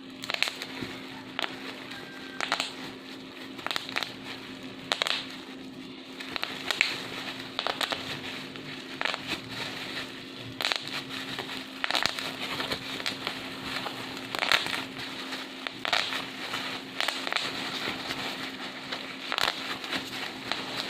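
Bubble wrap being squeezed and crumpled by hand, with a dense crackle and sharp pops coming at irregular intervals throughout.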